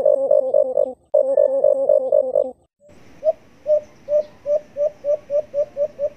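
Recorded dove calls played back as a bird-catcher's lure. First comes a fast, even run of low hooting notes that cuts off about two and a half seconds in. After a short break, a hissier recording follows: short rising coos that speed up, in the accelerating pattern of the alimukon, the white-eared brown dove.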